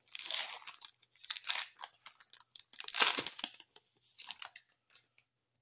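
Foil wrapper of a trading-card pack being torn open and crinkled, in a run of crackling tears loudest about three seconds in, dying away shortly before the end.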